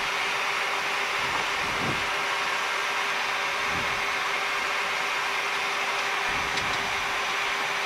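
Steady hiss and hum on a Boeing 737 flight deck while taxiing, from the air conditioning and the idling jet engines, with a few soft low thuds.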